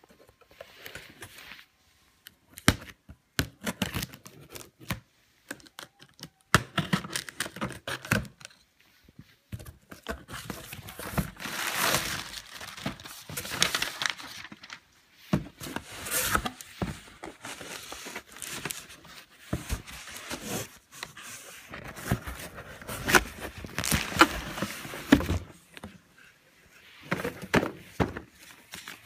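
Cardboard shipping box being unpacked: a knife slitting the packing tape, then cardboard flaps, plastic packing wrap and paper crinkling and rustling, with scattered knocks and scrapes as things are lifted out.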